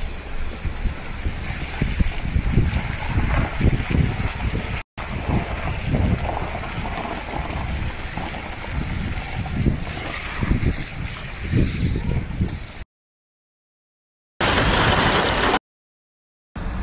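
A vehicle moving over flooded, hail-strewn desert ground: a steady rough rushing noise with water splashing and irregular low rumbles. It breaks off about five seconds in and again near the end, with a short burst of flat noise between two silences.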